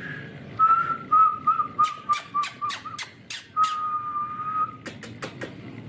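A person whistling a steady note, held about two seconds with a slight wobble, then again for about a second. A quick run of sharp clicks comes during the first note and a few more near the end.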